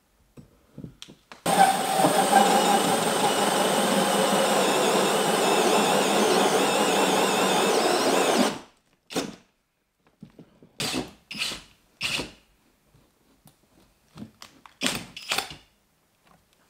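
Cordless drill driving a 152 mm hole saw, cutting steadily through OSB sheathing behind plasterboard for about seven seconds, then stopping abruptly. A few short bursts of sound follow.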